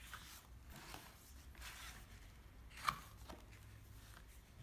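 Hands opening a cardboard board book and turning its stiff cover, a faint rustling with a few soft clicks. One sharper tap about three seconds in is the loudest sound.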